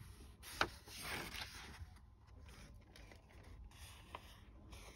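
Faint handling noise: a sharp click about half a second in, then a brief papery rustle as the printed instruction leaflet is moved, and another small click near the end.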